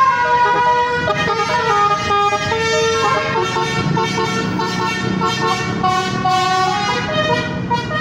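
Multi-tone "telolet" air horn on an Adiputro Jetbus 5 coach playing a quick tune of stepped notes, over the low running of the coach's engine as it pulls away.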